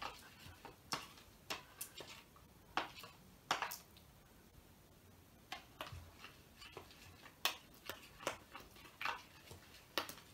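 A spoon clicking and scraping against a plastic bowl as thickening PVA slime is stirred: faint, irregular taps, with a pause about four seconds in.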